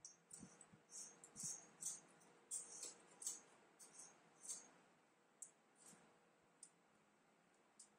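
Faint metallic clicking and rattling of the needles on a Silver Reed SK830 knitting machine's needle bed, moved by hand, in quick irregular clusters for about five seconds, then a few single clicks.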